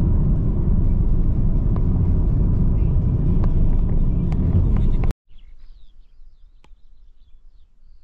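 Steady low rumble of a car driving, road and wind noise, cut off abruptly about five seconds in. A quiet stretch follows with faint bird chirps.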